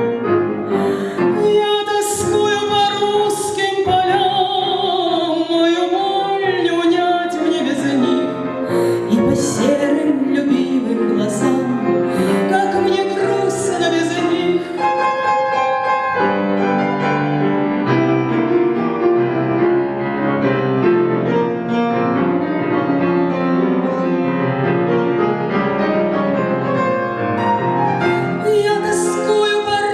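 A female singer performing a Russian romance in tango time, accompanied on a grand piano; her held notes carry a wide vibrato.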